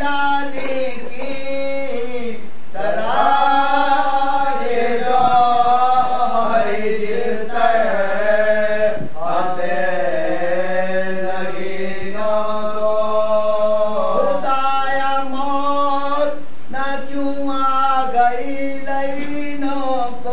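Men chanting an Urdu Muharram salam, a devotional elegy, without instruments. A lead reciter holds long, wavering notes and the seated men join in with him.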